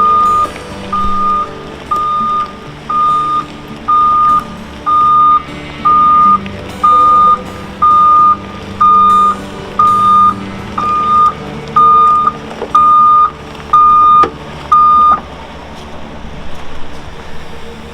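Dump truck backing up to dump its load, its reversing alarm giving a single-tone beep about once a second over the diesel engine running. The beeping stops about 15 seconds in as the truck halts.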